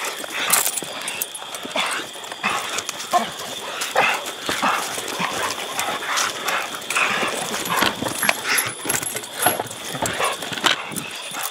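Hog-hunting dogs whining and barking in short, irregular bursts among scattered knocks and rattles, over a steady high-pitched tone.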